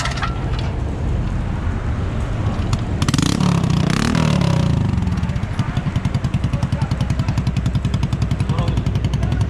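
Honda Revo single-cylinder four-stroke motorcycle engine running through its freshly welded exhaust, being checked for leaks. About three seconds in it revs briefly. It then settles into an even idle with a fast, regular exhaust pulse.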